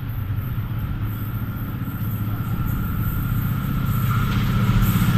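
Diesel-electric locomotive hauling a passenger train, approaching: a steady low engine drone that grows louder as it nears, with a faint high whine above it.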